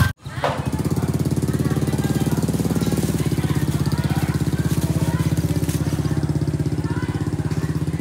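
A small engine idling steadily, with a fast, even pulse, dropping out for a moment just after the start. Faint crinkling of a plastic bag being handled over it.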